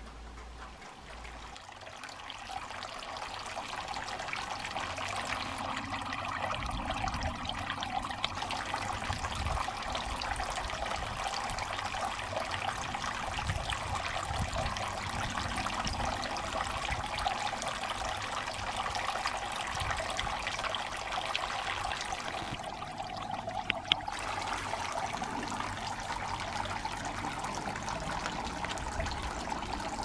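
Small solar-powered garden fountain running: thin streams of water falling from the rim of its umbrella into the basin, a steady splashing trickle. It grows louder over the first few seconds, and there is one sharp click late on.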